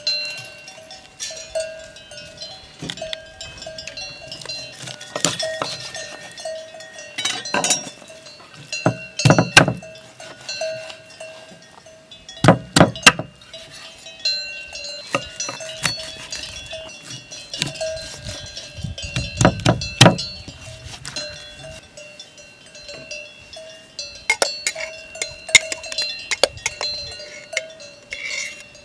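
A bell-like clank repeating steadily, about one and a half times a second, over sharp knocks and scrapes of a knife on a wooden cutting board while a roasted rabbit is carved. The loudest knocks come about nine, twelve and twenty seconds in.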